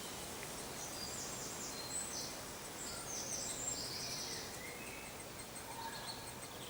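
Faint, high-pitched calls of great spotted woodpecker nestlings begging from the nest hole, a run of short calls in the first few seconds, over a steady background hiss. The chicks are large and close to fledging.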